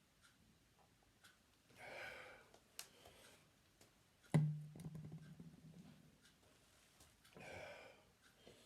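A deep burp about four seconds in, after chugging a weight-gainer shake: it starts suddenly and holds a low, steady pitch for over a second. A heavy breath out comes before it and another near the end.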